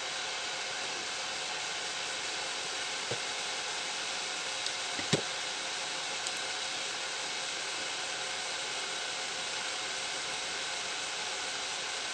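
Steady even hiss, with a few small clicks of wire and a soldering iron being handled at the bench; the sharpest click comes about five seconds in.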